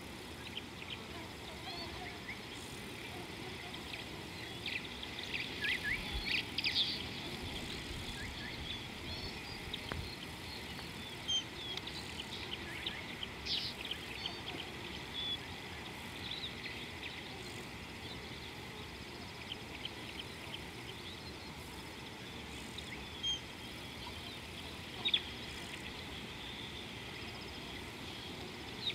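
Wild birds calling: bursts of short, high chirps, busiest about five to seven seconds in and again around the middle, with single sharper calls later, over a steady outdoor hiss and a faint high hum.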